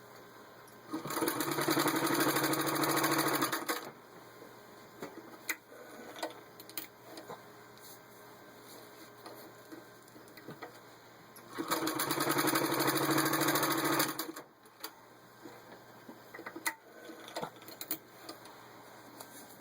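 Vintage Singer 66-8 sewing machine running in two bursts of about two and a half seconds each, stitching through four layers of vinyl upholstery. Scattered small clicks come between the bursts.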